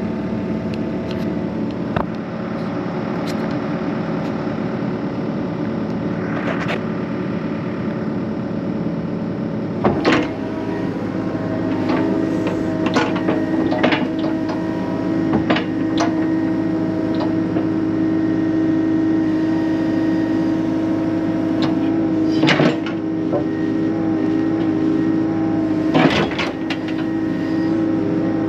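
Excavator engine running steadily while the machine picks through barn debris, its note changing about ten seconds in. Scattered sharp knocks and clanks from the bucket and debris, the loudest about ten seconds in and twice near the end.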